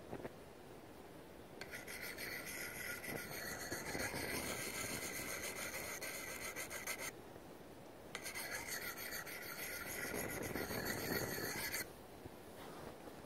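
Hand-held sharpening stone scraped in quick strokes along a steel blade's edge, a gritty rasping with a steady high ring in it. It comes in two spells, one of about five seconds and, after a pause of about a second, one of about four.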